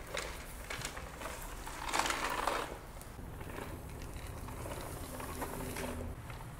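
Manual spinning push broom (Hurricane Spin Broom) rolled across a tile floor, its geared side brushes whirring and rattling, with a few clicks as it picks up debris. It gets louder for about half a second around two seconds in.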